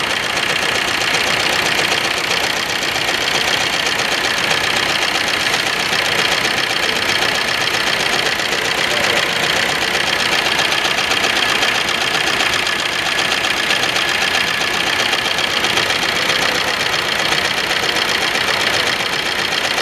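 Maruti Suzuki Ertiga diesel engine idling steadily, with a rapid, even ticking through it. The engine has a misfire.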